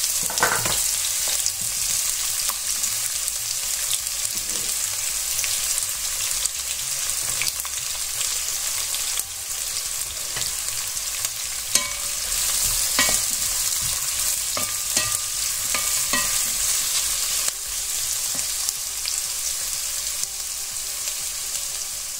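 Sliced onions sizzling in hot oil in a nonstick granite-coated pot, sautéing until translucent. A wooden spatula stirs them now and then, with short scrapes and knocks against the pan over the steady sizzle.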